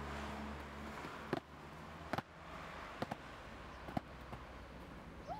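A freerunner's feet striking and landing on rubber playground flooring: several sharp impacts about a second apart over steady outdoor background noise.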